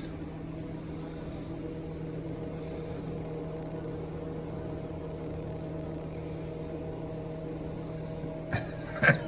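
A steady low mechanical hum with an even pitch, with a few short knocks about eight and nine seconds in.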